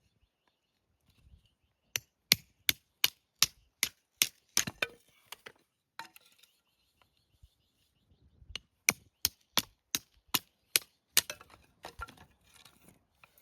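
Wood being chopped with quick, evenly spaced strikes, about three a second. There are two runs of about ten strikes each, with a pause of a few seconds between them.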